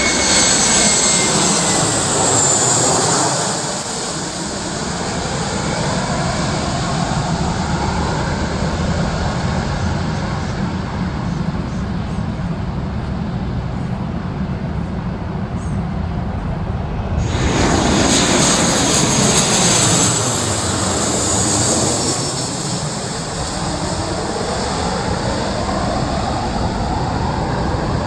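Aircraft engines of an airliner passing by, the tone sweeping down and back up as it goes past. About 17 seconds in the sound jumps abruptly louder and brighter, and a second aircraft pass with the same sweeping tone follows.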